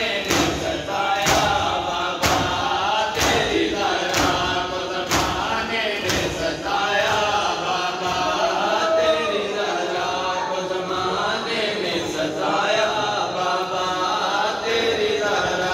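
A group of men chanting in unison with matam, open-handed beating on their bare chests, the strikes landing about once a second. The strikes fade out about six seconds in while the chanting goes on.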